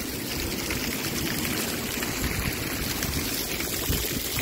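Small waterfall of a little river spilling down a sandstone cliff face and splashing onto rocks: a steady rush of falling water.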